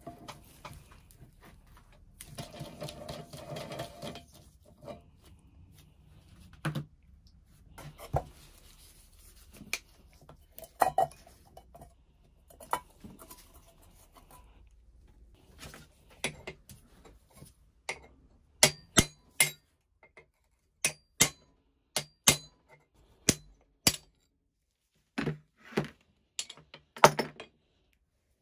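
Metal handling sounds from taking apart an old rusty hand-cranked grinder: a few seconds of grating as a wrench works a rusty nut, scattered clinks, then a run of sharp metallic taps about once a second near the end.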